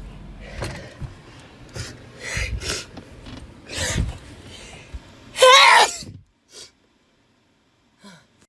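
A woman sneezing once, loudly and with her voice in it, about five and a half seconds in. Several shorter breathy sounds come before it.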